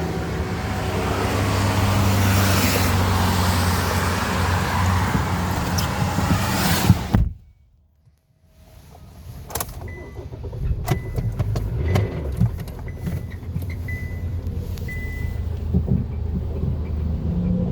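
Kia car engine running with a steady low hum; the owner calls it a bad motor. About seven seconds in the sound cuts off suddenly for about a second, then returns with scattered ticks and knocks over a low rumble.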